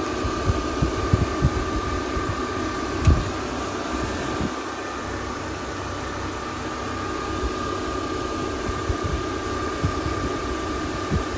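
Dual electric radiator cooling fans running, switched on through a ground-triggered relay: a steady whir with a constant high whine, and occasional low thumps.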